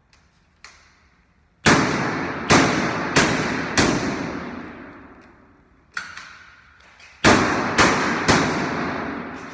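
A series of heavy bangs, each with a long ringing decay: four in quick succession, a lighter one, then three more.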